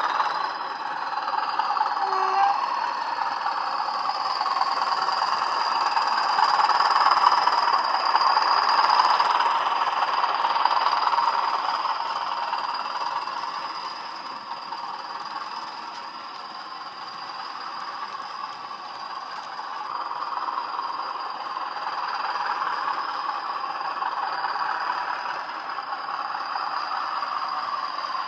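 Bachmann Class 20 model locomotive's DCC sound decoder playing a Class 20 English Electric diesel engine sound through small speakers as the model runs past under power, with a steady high whistle over the engine note. It gets louder as the locomotive passes, is loudest a few seconds in, then fades and rises again as the wagons follow.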